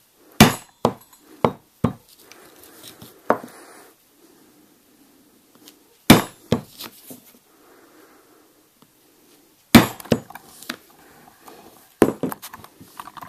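Heavyweight plastic-head mallet striking a steel hole punch through a leather collar strap: sharp knocks in four groups, a few strikes per hole, with faint rustling of the punch and strap being moved between groups.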